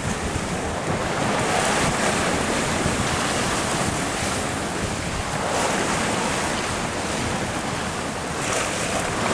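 Sea water rushing and splashing along a sailing boat's hull under way, with wind buffeting the microphone.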